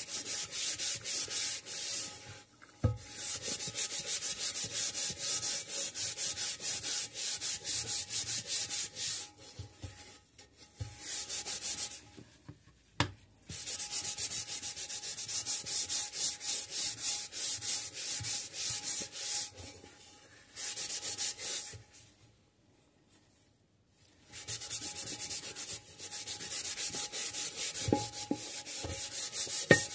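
A textured microfibre dish cloth charged with Mystik cleaning paste scrubs a frying pan in quick back-and-forth strokes, stopping briefly several times.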